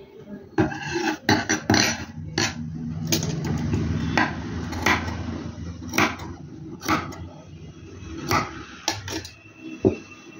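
Irregular sharp clicks and clinks of metal tools being handled on a worktable, about a dozen of them, with a low steady hum running through the middle few seconds.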